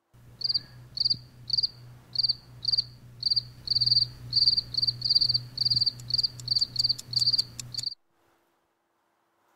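Cricket chirping, about two chirps a second that quicken near the end, over a low steady hum. It starts and cuts off abruptly, like a dropped-in 'crickets' effect for an awkward silence.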